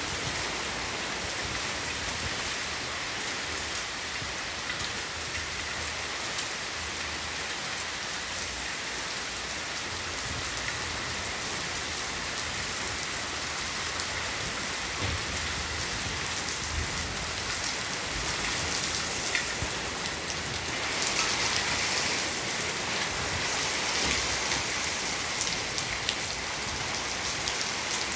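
Heavy rain falling steadily as a dense hiss of drops, growing a little heavier about two-thirds of the way through.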